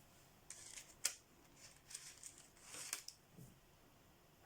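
Faint scratching of a coloured pencil scribbled on paper in short strokes, with a couple of light clicks as pencils are handled.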